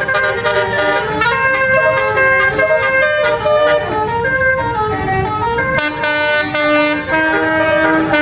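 Bus 'telolet' Basuri musical horn playing a tune. Several horn tones sound together and step quickly from note to note, over a low rumble.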